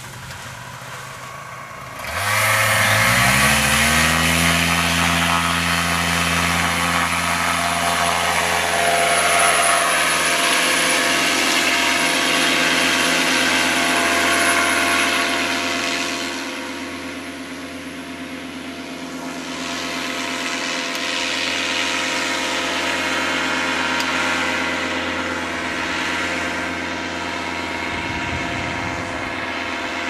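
Two-stroke paramotor engine and propeller opening up to full throttle about two seconds in, the pitch rising over a couple of seconds, then running steadily at high power through the takeoff run and climb. It fades somewhat past the middle as it moves away, then grows louder again as it flies close overhead.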